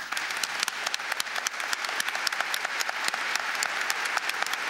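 Large seated audience applauding, many hands clapping at once in a steady, dense ovation.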